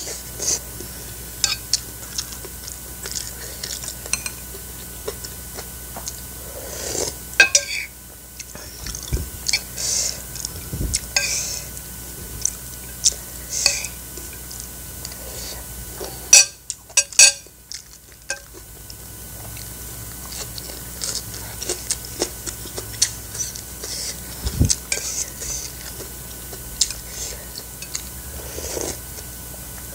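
Metal spoon and fork clinking and scraping against a ceramic plate and soup bowl while eating, in short irregular clicks, with a loud flurry of clinks about halfway through.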